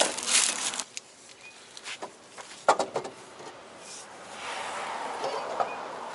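Plastic wrapping crinkling around a new CV axle for about the first second. Then a few sharp clicks and knocks, and near the end a longer rasping scrape as the axle's splined outer shaft is fed through the steering knuckle's hub.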